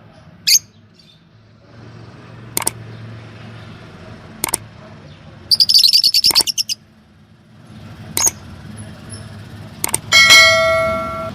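Yellow Fischer's lovebirds giving short, sharp chirps every couple of seconds, with a rapid chattering trill in the middle. Near the end a loud bell-like ring fades away.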